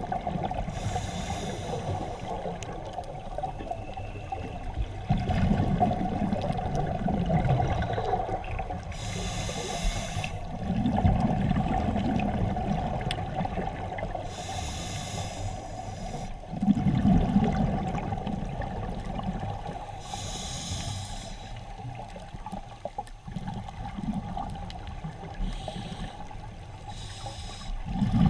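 Scuba diver breathing through a regulator, heard underwater: a hiss on each inhalation, then a low rush of exhaled bubbles, repeating about every five to six seconds over a steady hum.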